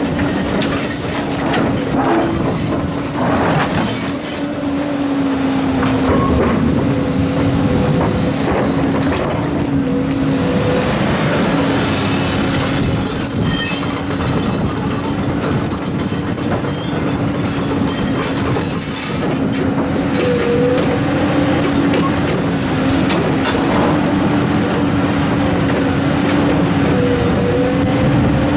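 Large Komatsu hydraulic excavators working at steady engine revs: a constant engine hum under broad machine noise, with high metallic squeals coming and going and a few knocks in the first four seconds.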